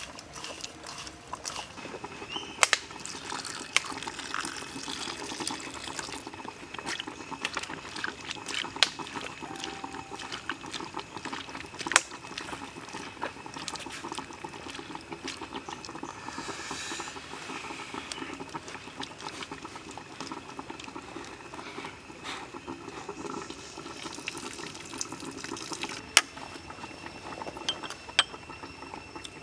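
Hands squeezing and tossing shredded raw vegetables in a bowl: a wet crunching and squishing with many small crackles and a few sharper clicks. Near the end a spoon clinks against a small ceramic seasoning cup.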